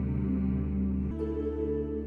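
Slow ambient background music of sustained low tones over a steady drone, shifting to a new chord about a second in.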